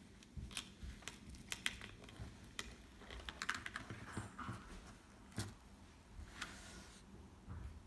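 Plastic technic building-brick parts of a hand-held gripper clicking and rattling as it is worked: a scatter of light sharp clicks, thickest in the first three and a half seconds, with single louder clicks near five and a half and six and a half seconds.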